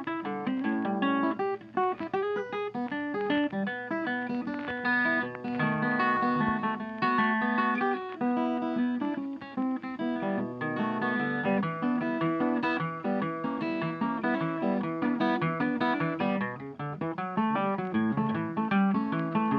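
Background music: acoustic guitar playing many quick plucked notes.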